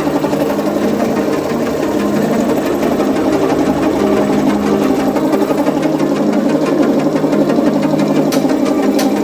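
Pneumatic impact wrench running, its hammer mechanism rattling rapidly and steadily, with a few sharp clicks near the end.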